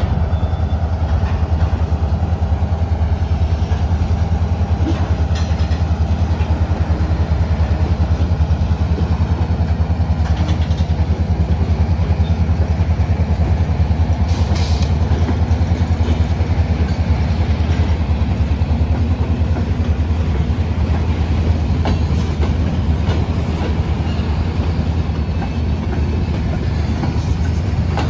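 Freight train of covered hoppers and tank cars rolling past: a steady low rumble of steel wheels on rail, with a few short clicks over the rail joints.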